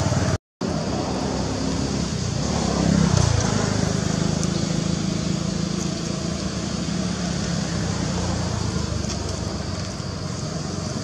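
Steady rumble of motor traffic, with a vehicle passing about two to three seconds in, its engine pitch falling as it goes by. The sound drops out completely for a moment near the start.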